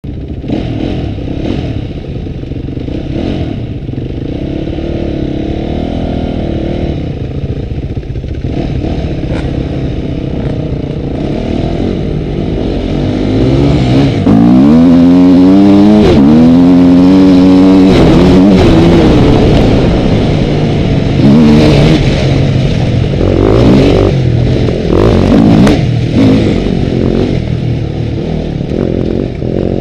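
Dirt bike engine heard close from the bike, revving up and down as it rides over rough, muddy ground; it is loudest around the middle, with repeated rises in pitch as it accelerates. Later come clattering knocks and bumps over the rocky surface.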